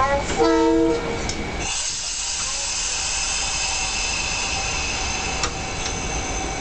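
Inside the cab of a moving ND5 (GE C36-7) diesel locomotive: a short horn blast about half a second in. A steady hiss of air follows for the rest of the time, with a faint click near the end.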